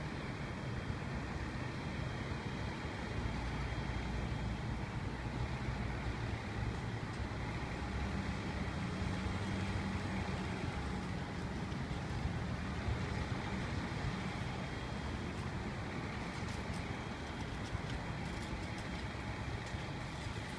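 Steady city street traffic with vehicle engines running; a passing vehicle's engine grows louder about ten seconds in and then fades.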